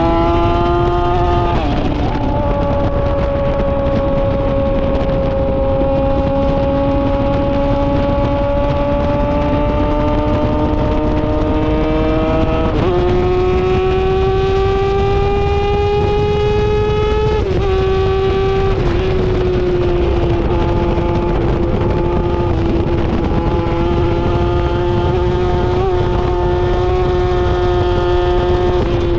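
Yamaha R6's inline-four engine through an SC-Project titanium exhaust, running at high revs under way with its pitch slowly climbing. The pitch drops about two seconds in, jumps up near the middle and drops again shortly after, as gears change.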